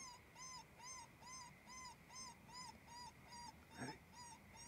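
Electronic predator call playing a looped whimpering distress cry: faint, evenly repeated rise-and-fall squeals, about two and a half a second.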